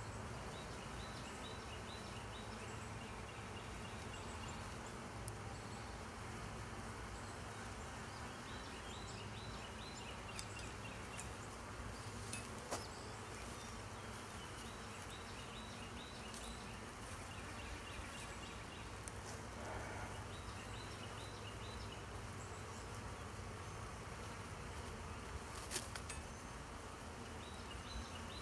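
Honey bees from a package in its screened shipping box buzzing steadily, with a few sharp clicks, the loudest near the end.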